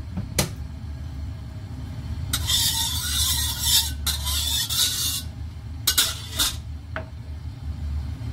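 Metal wok spatula scraping around a steel wok, spreading cooking oil for about three seconds, then a few clinks as it is laid down in the wok, over a steady low hum.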